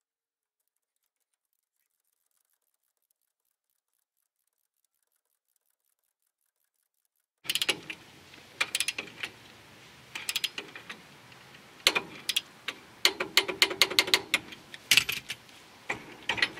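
Dead silence for about the first seven seconds. Then a socket ratchet clicks in quick runs, with metal clinks and rattles of tools, as the bolts of a front disc brake caliper bracket are run down on the spindle.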